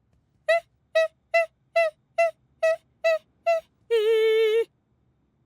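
A cartoon character's voice singing eight short notes on the same pitch, evenly spaced, then one longer, lower note held with a slight vibrato.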